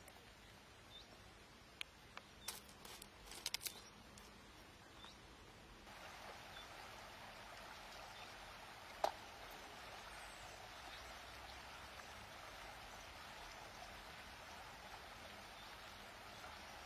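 Shallow river water running steadily, coming in about six seconds in after a quieter stretch with a few faint clicks. A single sharp click stands out about nine seconds in.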